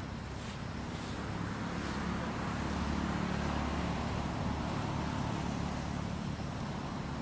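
A motor vehicle's engine passing, a low hum that swells a couple of seconds in and eases off near the end, over steady outdoor background noise.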